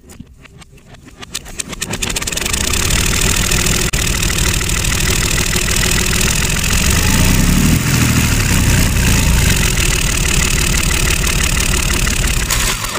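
Tractor engine running with a fast, even pulse. It builds up over the first two seconds and then holds steady and loud.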